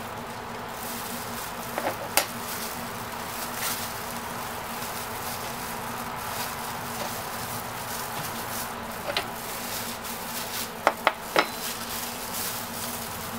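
A metal spoon clicking and scraping against a plastic cutting board as the seeds are scraped out of a halved jalapeño. There are a few light clicks about two seconds in, and three sharper taps near the end. A steady hum runs underneath.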